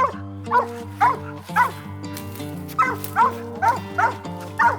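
A hunting hound barking treed, about ten short barks that drop in pitch, the sign of a dog holding a raccoon up a tree. Background music with held notes plays underneath.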